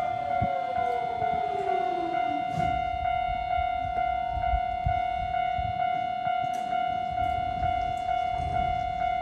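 Japanese railway level-crossing alarm ringing its steady, rapidly repeated electronic tone. A train passes: a falling whine fades out about two and a half seconds in, followed by the low rumble of wheels on the track.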